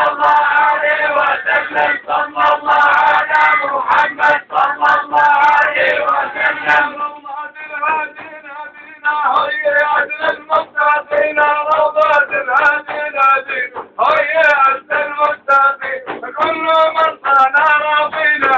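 Men singing Sufi devotional chant to a large frame drum beaten in rhythm. The singing drops away briefly about halfway through, then comes back.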